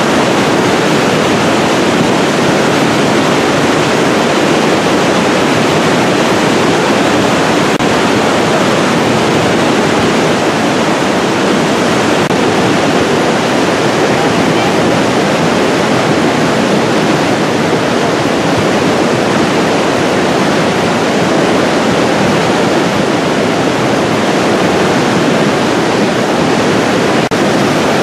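Loud, steady rush of fast-flowing, debris-laden water, typical of a river running high after a mudslide.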